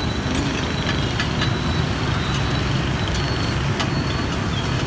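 Street traffic with a steady engine rumble, and a few light clicks over it.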